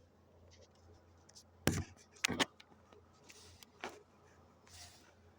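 A few sharp knocks and clatters of hard objects being handled and set down. The loudest comes about a second and a half in, two quick ones follow just after, and a softer knock comes near the end, over a faint steady hum.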